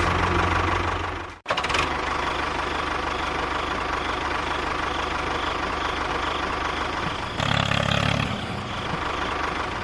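An engine running steadily, with a sudden momentary break about a second and a half in and a louder stretch lasting about a second near the end.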